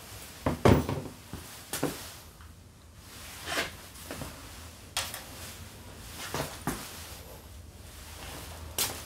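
Irregular knocks and clatters of workshop handling, as the scooter's plastic body panels and tools are moved and set down. About seven separate knocks, the loudest about a second in.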